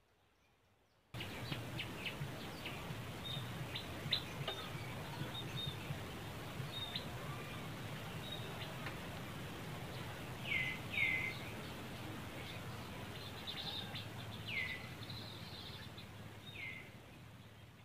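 Outdoor ambience that starts abruptly about a second in: a steady low hum with scattered light clicks, and several short high chirps, each falling in pitch, in the second half.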